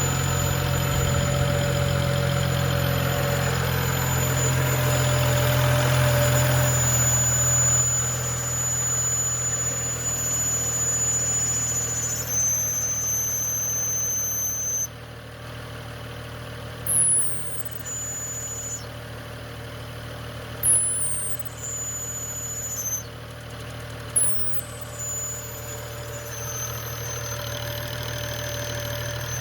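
BMW 335i inline-six engine idling, with a thin high-pitched whistle that jumps in pitch in steps and three short sharp rising squeaks in the second half. This is the whistle or screech that the owner traced to a small section of hose rather than the valve-cover PCV valve.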